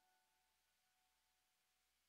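Near silence: only the last faint trace of background music fading out.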